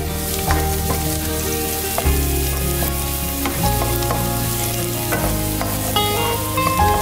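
Sliced shallots, garlic and spring onion sizzling in hot oil in a nonstick wok, stirred with a spatula. Background music plays underneath, its low notes changing about every second and a half.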